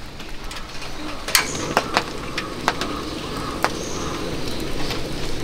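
Cassette gas stove under a box smoker being lit, with a sharp ignition click about a second in and then the burner's steady hiss. Irregular light ticks and taps come and go throughout, and a bird calls faintly.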